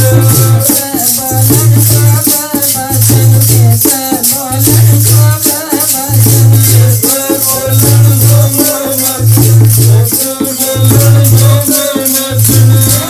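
A woman singing a Sikh devotional shabad in Punjabi over a microphone, with a fast, even rattling beat and a deep note that pulses on and off about every second and a half.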